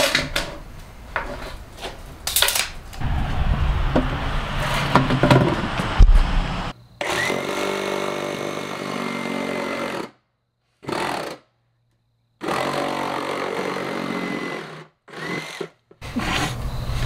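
Cordless reciprocating saw cutting through a cardboard concrete form tube. It runs steadily with a high whine in three stretches of a few seconds each, the first two cut off abruptly and the last one short. Before the saw starts there are about six seconds of scattered clicks and knocks.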